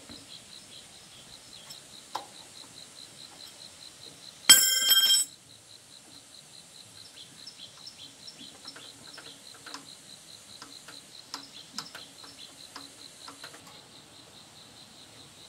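Light metallic clicks and taps of hand tools working on a small single-cylinder engine, over steady insect chirping. About four and a half seconds in comes a loud, bright metallic ring lasting under a second.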